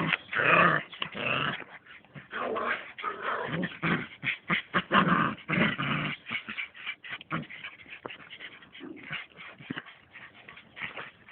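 Border collie puppies growling and whimpering in rough play, a quick run of short calls that is loudest in the first six seconds and softer after that.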